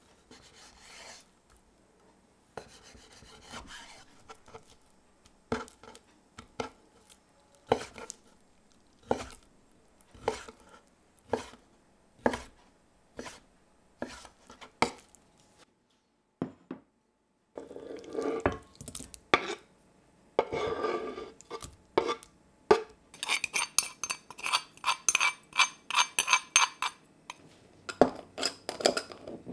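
A chef's knife slicing raw chicken breast on a wooden chopping board, then dicing it, the blade knocking the board about once a second. Near the end comes a quick run of sharp, bright clicks and clinks.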